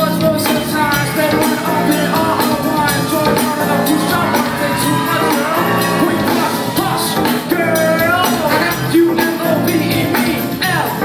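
Pop song: a singer over a band with a steady beat.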